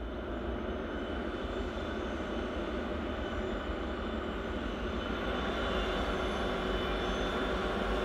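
Diesel locomotives at the head of a coal train running as they approach, a steady engine drone growing gradually louder.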